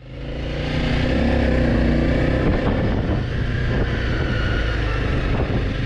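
Honda CRF300L Rally's single-cylinder engine running steadily under way, with wind rushing over the microphone; it fades in over the first second.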